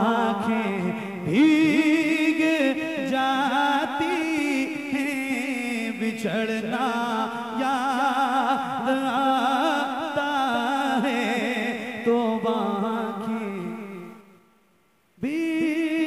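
Naat sung by a solo male voice into a microphone, long melismatic notes wavering with vibrato. Near the end the voice fades out for under a second, then comes back in.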